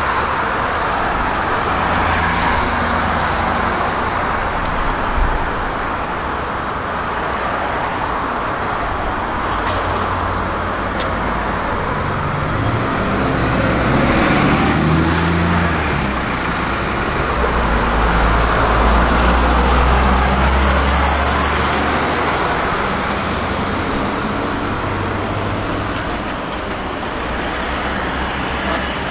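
Passing road traffic: a steady noise of vehicles, with a heavy vehicle's low engine rumble building through the middle and then easing off.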